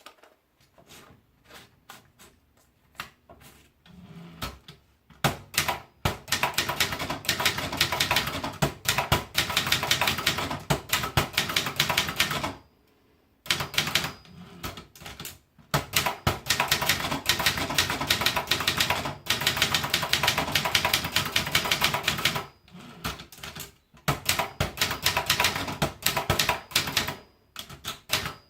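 Brother Deluxe 900 typewriter being typed on. The keystrokes start as a few scattered, quieter clicks, then come in long runs of fast typing, with short pauses about halfway through and again near the end.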